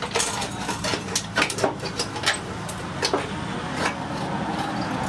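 A series of irregular sharp clicks and clinks over a steady low hum.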